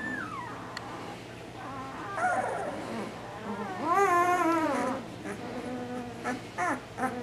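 Ten-day-old Bernese Mountain Dog puppies squeaking and whimpering, the tired complaining cries of newborn pups. The cries rise and fall in pitch, with the longest and loudest about four seconds in and a few quick short squeaks near the end.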